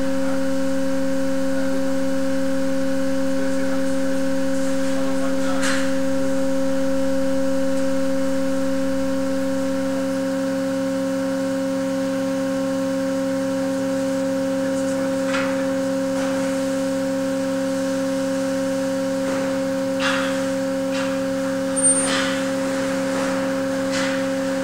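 Steady machine hum from the structural load-testing rig, a low drone with a higher overtone held at one pitch. A few faint clicks or ticks come and go over it.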